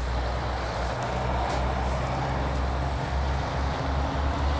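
Tractor-trailer driving past: a steady low engine and road rumble.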